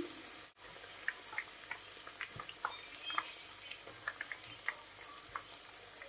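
Tod man fritters deep-frying in a pan of hot oil: a steady sizzle with scattered pops and crackles as they are turned with a wooden chopstick. The sound briefly cuts out about half a second in.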